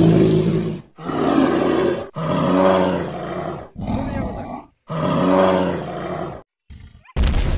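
Dinosaur roar sound effects: about five roars and growls in a row, each dropping off before the next. A deep boom starts suddenly near the end.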